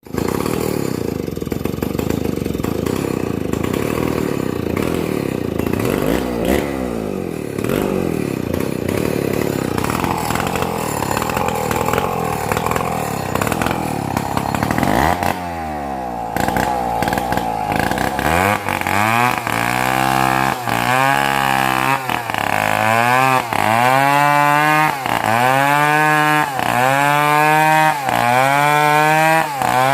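Chainsaw engine running throughout. Over the second half it repeatedly revs up and drops back, about once a second.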